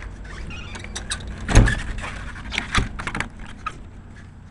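A run of short knocks and clicks. The loudest is a dull thump about a second and a half in, with another sharp knock near three seconds.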